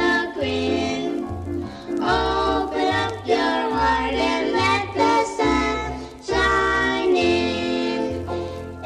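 Young children singing a bright, bouncy song together with instrumental backing and a bass line that bounces between two notes.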